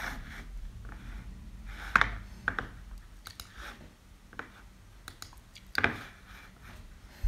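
Sparse, irregular clicks and taps from a computer keyboard and mouse, with two louder clacks about two seconds in and just before six seconds, over a low room hum.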